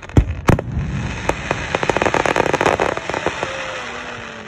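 Aerial fireworks: two sharp bangs of shells bursting close together near the start, followed by a dense crackling of many small pops that thins out towards the end.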